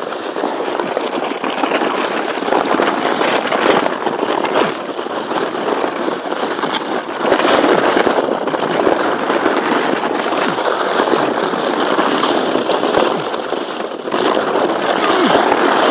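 Plastic sledge sliding down an icy, packed-snow road, a continuous rough crackling scrape of its base over the crusted snow, close to the microphone. It grows louder about seven seconds in.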